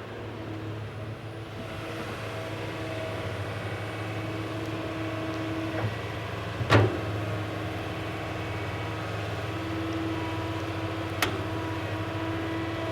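Excavator motor running steadily, a low hum with faint whining tones over it, with two sharp knocks: a louder one about halfway through and a smaller one near the end.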